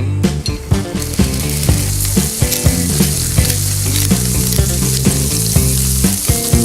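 Food sizzling as it fries in a hot pan, the hiss setting in about a second in and holding steady, with background music underneath.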